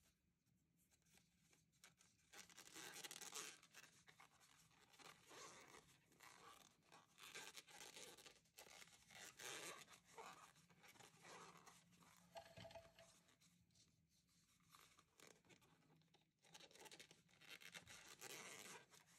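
Faint, irregular rustling and scraping of knitted T-shirt yarn rubbing on a large crochet hook and being drawn through loops as single crochet stitches are worked.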